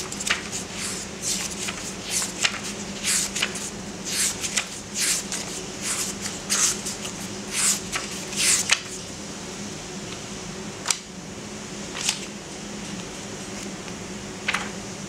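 Pages of a book of thick, rough-edged wood-free paper turned by hand: a quick run of short papery swishes for about the first nine seconds, then a few single page turns further apart.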